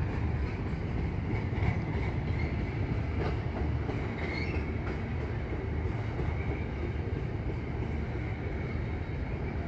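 Slow-moving CN intermodal freight train rolling past, its loaded container cars making a steady rumble with a few faint clicks from the wheels.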